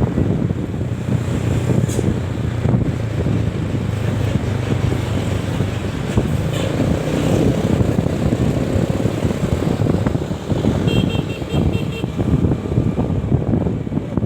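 A bus engine running with a steady low hum, under heavy wind buffeting the microphone. Just before the end, a quick run of about six short, high beeps.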